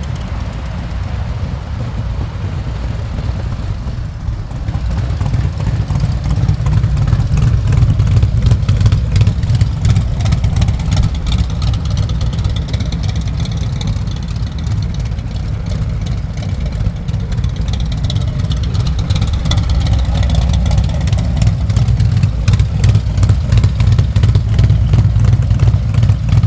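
Several Harley-Davidson V-twin motorcycles with aftermarket exhausts idling together, a deep, steady, pulsing engine sound that grows louder from about six seconds in.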